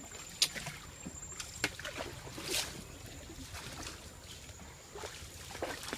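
Wooden oars rowing a small wooden boat: water splashing and lapping, with a few sharp knocks, the loudest about half a second in, and a louder splash about two and a half seconds in.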